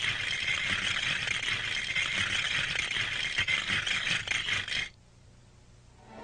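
Continuous dense rattling with a few sharper clicks, which cuts off suddenly about five seconds in.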